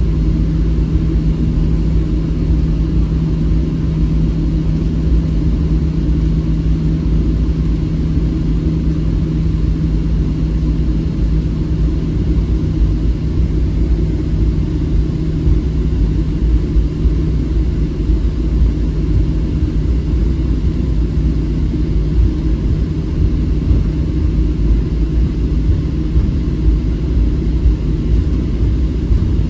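Inside the cabin of a Boeing 737-700 taxiing: a steady low rumble from its CFM56-7B engines at taxi power, with a low hum that fades about halfway through.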